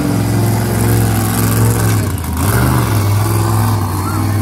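Monster truck engine running hard and revving as the truck drives across a dirt arena, loud, with the pitch dropping briefly about two seconds in and then picking back up.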